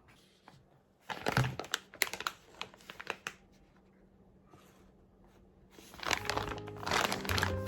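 Crinkling and clicking handling sounds in short, irregular clusters with a few sharp taps among them, like something being crumpled or handled. Background music fades in about six seconds in.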